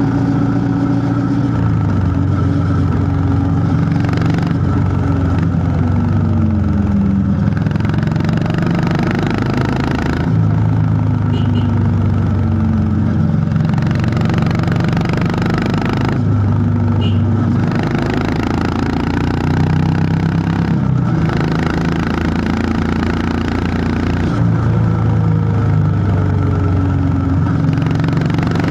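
Honda CB350 H'ness's single-cylinder engine thumping through its exhaust under way. The engine note climbs and drops several times with throttle and gear changes, and glides down once about six seconds in as the bike slows.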